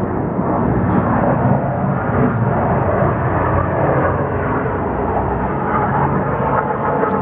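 Loud, steady engine rumble from heavy machinery passing, with no distinct tones or strikes.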